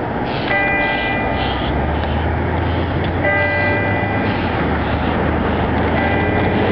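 Church bell tolling at a slow, even pace, three strokes about three seconds apart, over a steady low rumble of a passing train.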